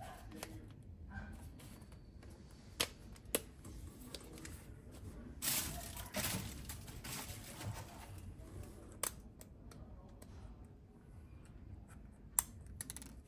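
Canon EOS R100 camera body and lens being handled and turned over in the hands: scattered small plastic clicks and a rustling stretch in the middle, then a sharp click near the end as the card/battery compartment door latch is worked.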